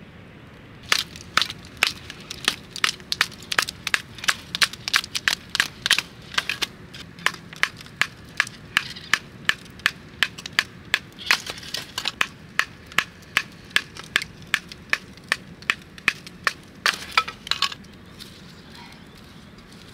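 Batoning firewood: a wooden baton striking the back of a knife blade driven into a split of wood. A long run of sharp knocks, about two to three a second, which stop near the end.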